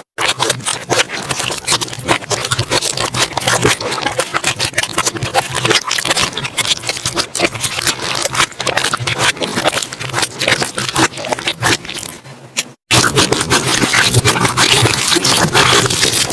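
Slime being squished and kneaded by hand, a dense run of sticky clicks and crackling pops. It breaks off briefly about three-quarters of the way through, then the same kind of sound resumes.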